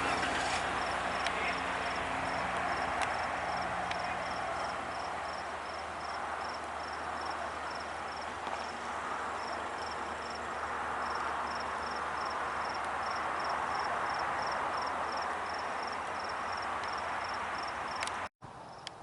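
An insect chirping evenly at a high pitch, about three chirps a second, over a steady rushing noise; everything cuts out briefly near the end.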